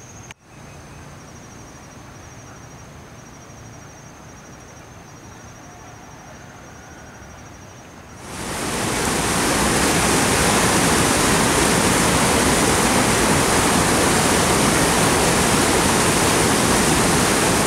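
A faint high insect trill pulses over quiet river ambience. About eight seconds in, loud, steady rushing whitewater takes over: river rapids churning below a rock ledge.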